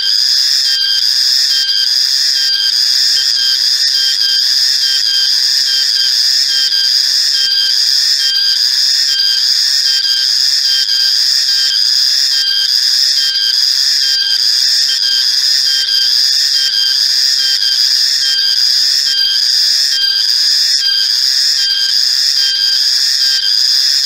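Cicada calling: a loud, unbroken high-pitched drone with a faint regular pulse a little more than once a second.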